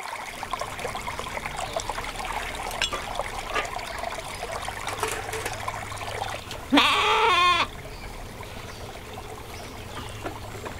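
Stream water trickling over stones, with a few light clinks of metal dishes being washed in it. About seven seconds in, a sheep gives one loud, wavering bleat lasting under a second, and a quieter steady background follows.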